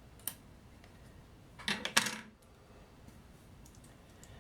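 A single light click, then about two seconds in a short clatter of sharp clicks from small hard objects set down or knocked together.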